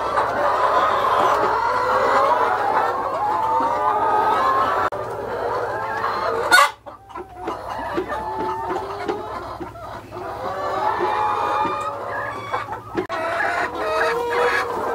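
A large flock of laying hens clucking and calling over one another. A sharp click comes about halfway through, and the calls briefly drop away after it.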